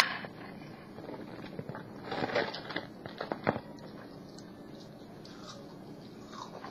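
Small dog eating bacon scraps off a tile floor: scattered crunching and clicking, busiest in the first half with a sharp click about three and a half seconds in, then quieter.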